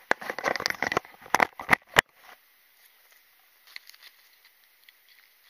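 Handling noise from a small action camera being turned around in the hand: dense rubbing and knocking on the microphone for about two seconds, ending in one sharp click, then only faint small clicks.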